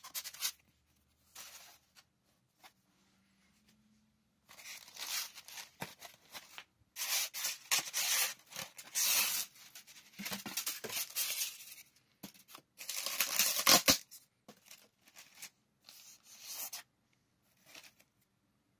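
Packaging being handled: clear plastic wrap and foam packing around the musket rustling and crinkling in uneven bursts, loudest about thirteen seconds in, with a few short, quieter rustles after.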